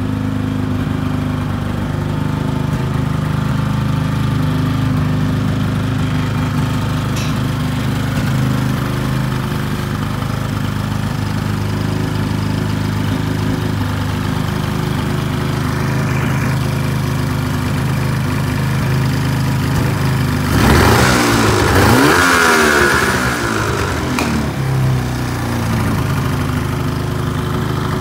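Freshly rebuilt 2004 Ski-Doo SDI two-stroke snowmobile engine, with a new crank, pistons and oil pump, idling steadily on one of its first runs. About three-quarters of the way through, the throttle is blipped: it revs up, falls back and returns to idle.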